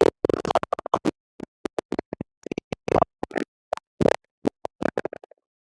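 A voice chopped into many short fragments with dead-silent gaps between them, as if the audio keeps dropping out; it stops about five seconds in.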